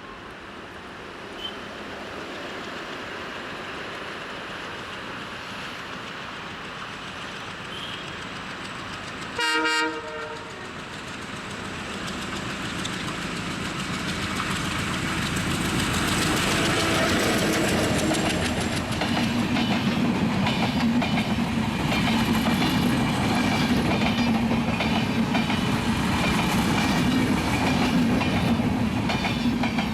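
Bangladesh Railway express train approaching and passing: a single short blast of the diesel locomotive's horn about ten seconds in. Then the rumble grows louder, and from about halfway on the wheels clatter rhythmically over the rail joints as the coaches go by.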